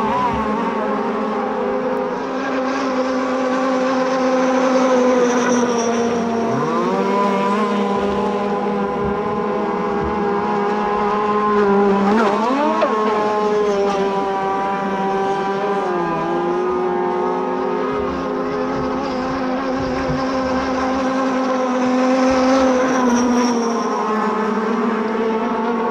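Engines of several large petrol-powered RC race boats running at high revs together, their pitch rising and falling as the boats speed up, pass and turn.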